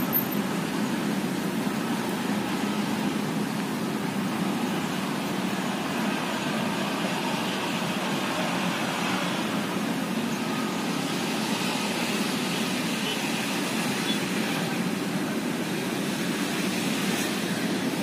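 Steady hum of city traffic, an even wash of noise without any single sudden sound.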